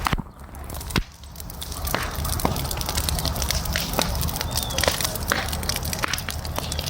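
Bonfire crackling, with many sharp pops scattered over a steady noise.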